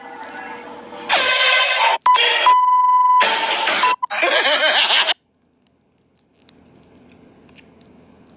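Air horn blown in three loud, blaring blasts with brief breaks between them, starting about a second in and stopping abruptly about five seconds in. Only faint background noise follows.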